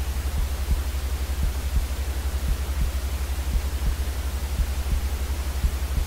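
Steady white noise: an even hiss across the whole range over a strong, rapidly fluttering low rumble, with small irregular low thumps.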